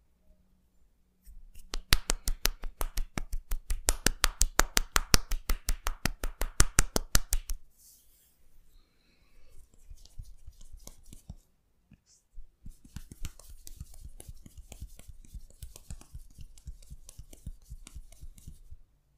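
Percussive massage: hands striking the body in a fast, even rhythm, about six or seven strokes a second, for about six seconds. After a short pause comes a quieter run of faster, lighter pats with a rubbing hiss.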